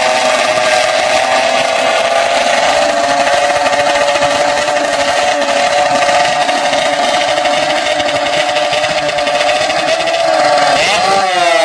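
Drag-racing motorcycle engines held at high revs on the start line, a steady high-pitched drone. Near the end the pitch jumps sharply and then slides back down.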